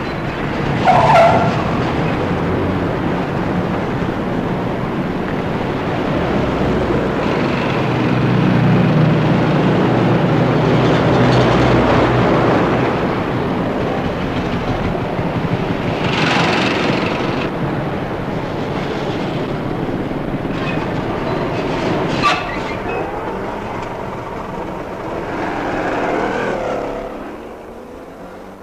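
Street traffic: a steady wash of passing cars that swells as vehicles go by close, with a sharp click about two-thirds of the way through, fading out near the end.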